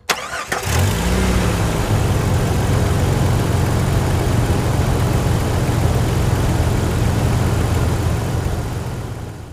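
An engine revs up about a second in, then runs at a steady speed and fades out near the end.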